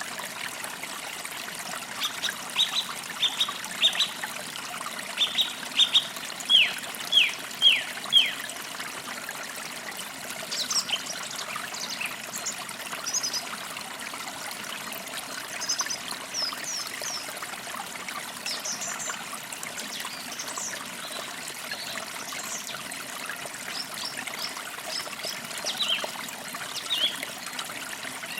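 Forest creek trickling steadily, with birds chirping over it: a quick run of short falling chirps in the first third, then scattered higher chirps.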